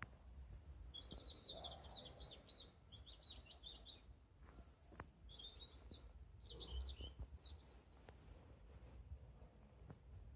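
A small songbird twittering faintly in a run of short, rapid, high-pitched phrases, with a few brief pauses between them, over a low background rumble.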